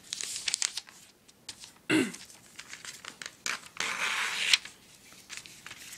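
Sheet of printer paper being handled and folded in half by hand on a wooden table: crinkling, rustling and creasing, with scattered small clicks. A brief falling-pitched sound about two seconds in.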